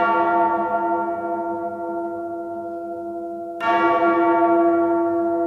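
A bell tolling: a stroke already ringing and slowly fading, then a second stroke about three and a half seconds in.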